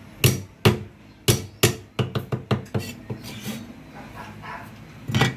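A broad kitchen knife chopping on a thick wooden chopping block: a run of sharp knocks, a few spaced out at first and quicker around two seconds in, with one more hard chop near the end.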